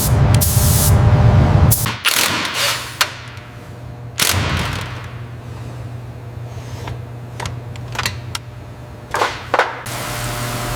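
Workshop noise: a loud low rumble for about two seconds, then a steady low hum with sharp knocks and clicks, about eight of them scattered irregularly, two close together near the end.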